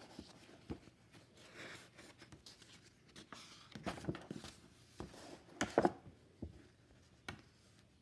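Paper rustling and light handling noises as a picture-book page is turned, with the loudest rustles about four and six seconds in.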